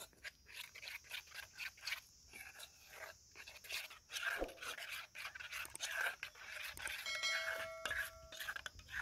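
Metal spoon stirring cassava flour and cold water in an aluminium bowl: a quick run of clinks and scrapes against the metal. About seven seconds in, a short chiming tone sounds for a second or so.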